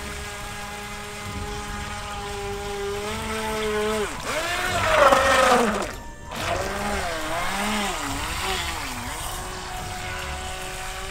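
Small electric motor of a radio-controlled toy boat whining. It runs at a steady pitch, then swoops up and down in pitch and grows loudest about five seconds in. After a brief cut-out it wavers up and down a few more times and settles back to a steady pitch.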